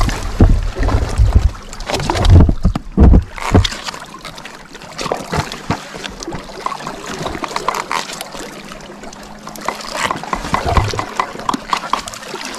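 Knocks and splashes of water around a small fishing boat, with heavy thumps in the first few seconds, then a quieter steady wash of water with occasional knocks.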